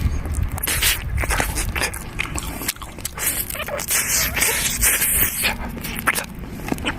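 A person eating stewed pigeon close to the microphone, chewing and biting meat off the bones, with many small crunches and clicks.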